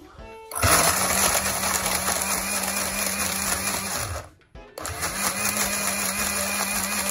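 Countertop blender motor running loaded with soaked dates and liquid, blending them to a purée: it starts about half a second in, stops briefly about four seconds in, then runs again.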